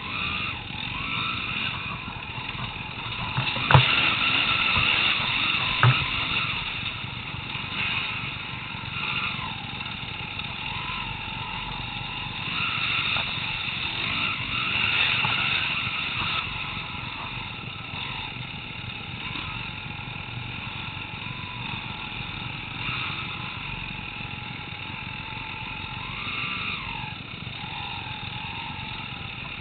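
Enduro dirt bike engines running and revving up and down through the whole stretch, heard close from on board one of the bikes. There are two sharp knocks about four and six seconds in.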